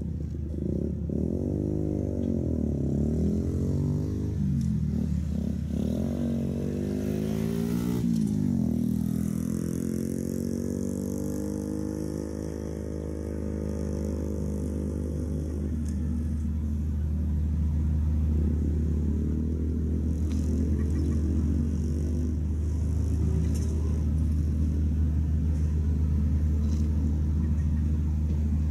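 Large engine running steadily with a deep hum, its tone wavering up and down over the first half before settling.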